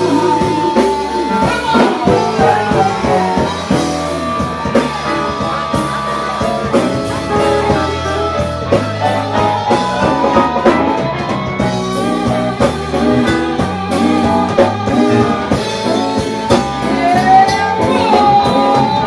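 Live blues band playing, with electric guitar, drums and a voice singing.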